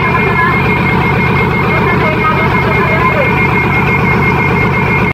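Heavy diesel engine of a hydraulic excavator running steadily at close range, with a thin steady high whine over the rumble.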